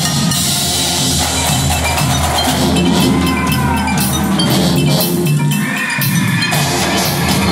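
College marching band playing: brass with the drumline's snare and bass drums and front-ensemble marimbas and xylophones struck with mallets.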